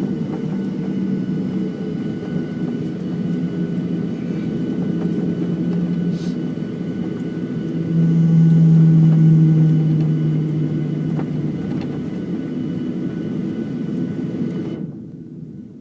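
Boeing 737-900 jet engines, CFM56-7Bs, heard from aboard as a steady low rumble with a hum in it. The rumble swells about halfway through, and near the end the higher hiss cuts out suddenly, leaving only the low rumble.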